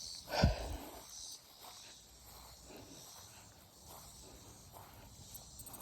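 Faint outdoor ambience with insects chirping, a brief low thump about half a second in, and a fast high ticking that starts near the end.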